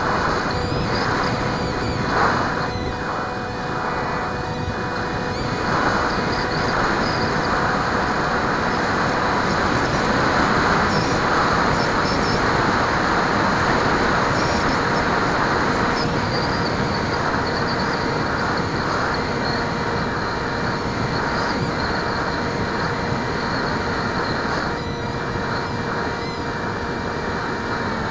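Bixler RC plane's electric pusher motor heard from the onboard camera: a steady whine with a few fixed tones, over a constant rush of air across the airframe. Near the end the whine shifts slightly in pitch.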